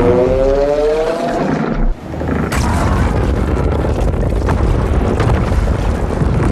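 Godzilla sound effects: the end of a roar rising in pitch, cut off about two seconds in, followed by a loud, dense rumbling noise with crackles.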